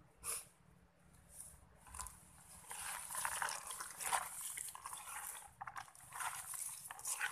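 A hand mixing raw sliced beef, sliced onion and chopped green beans in an aluminium bowl: wet squishing and rustling, which becomes dense and steady from about two and a half seconds in.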